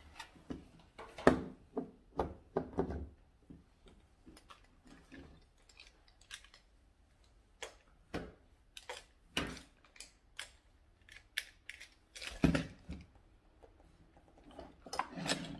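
Irregular clicks and knocks from a wooden toy lock box being handled by a toddler: its metal latches clicking and the box knocking against a hardwood floor, louder about a second in and again about twelve seconds in.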